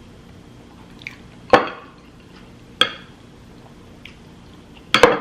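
Sharp clicks and clatters of eating from a dish of saucy seafood boil, with wet sauce sounds under them. There are three main knocks: the loudest about a second and a half in, another near three seconds, and a quick double near the end.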